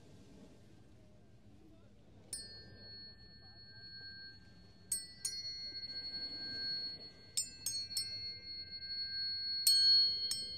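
Metal tuning forks struck one after another, about eight strikes, each leaving a steady high ringing tone that overlaps the ones before it.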